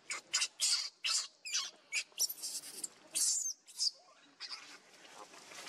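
Infant macaque crying: a quick run of short, shrill squeals, growing fainter after about four seconds.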